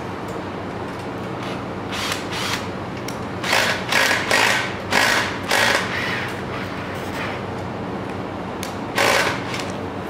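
Cordless drill-driver running in short bursts as it drives screws into the steel frame of a flat-packed wall cabinet: one burst about two seconds in, a quick run of four or five a little later, and one more near the end, over a steady low hum.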